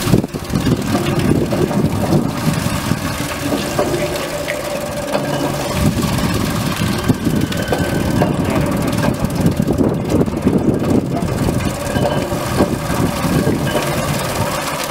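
Stainless-steel centrifugal potato cutting machine running, with a steady, loud, rough clatter as potatoes dropped into its top opening are spun against the blades and cut.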